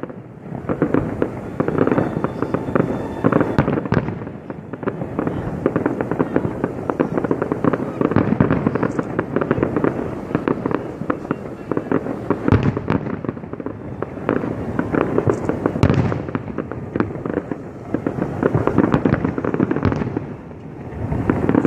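Fireworks display: a continuous barrage of rapid bangs and crackles, with a couple of louder booms about halfway through.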